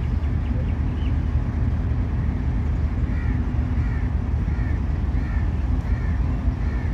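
Steady low drone of a diesel-electric locomotive's engine running. From about halfway in, a bird calls about six times in a row, short arched chirps a little over half a second apart.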